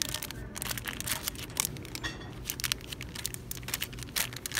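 Plastic-bagged paper gift tags crinkling and rustling in a dense run of sharp crackles as a hand shuffles through them in a wire bin.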